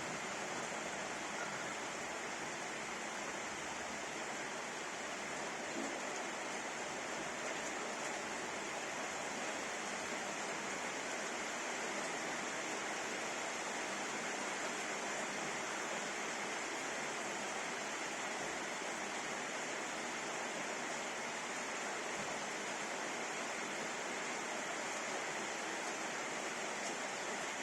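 Steady rainfall, an even hiss with no change and no thunder.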